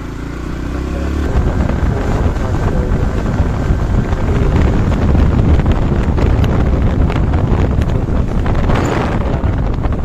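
Heavy wind buffeting on the microphone of a moving vehicle, with road and engine noise underneath; it grows louder over the first second or so as the vehicle gathers speed, then stays loud.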